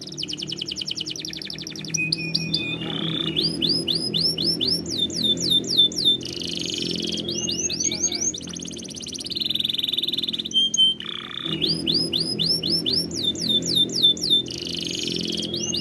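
Domestic canary singing a continuous song of rapid trills, each phrase a quick run of the same repeated note before switching to a new one every second or two, over a low steady hum.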